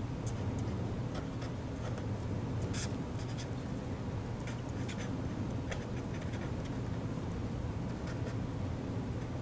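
Pen writing on paper: short, irregular scratching strokes as equations are written out, over a steady low hum.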